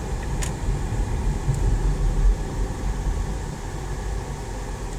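Cabin noise of a Chevrolet Captiva SUV driving slowly in city traffic: a steady low engine and road rumble heard from the driver's seat, with a brief click about half a second in.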